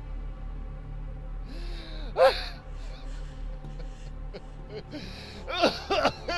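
A person gasping and whimpering: one sharp gasp about two seconds in, then several quick, shaky gasps near the end.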